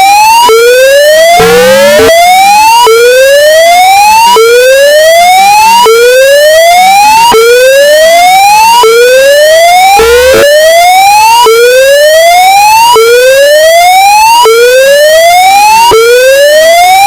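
Emergency alert alarm tone, an electronic siren whoop that rises by about an octave every second and a half, then drops back and repeats. It is boosted to full volume and heavily distorted.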